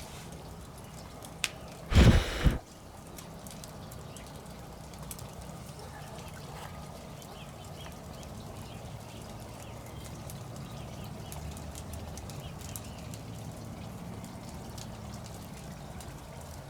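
Wood campfire crackling with scattered sharp pops over a steady low hum. About two seconds in there is one loud, brief rush of noise lasting about half a second.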